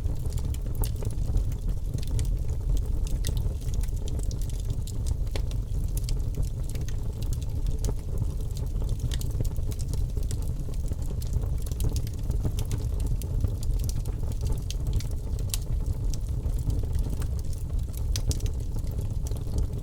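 Birch logs burning in a fireplace: a steady low rumble of flame with frequent small, sharp crackles and pops at irregular intervals.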